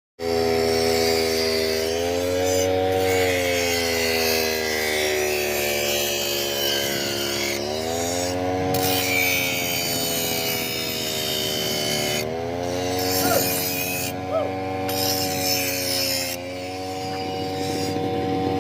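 Petrol brush cutter running as it cuts grass, its engine pitch dipping and climbing again several times over a rough, rasping hiss.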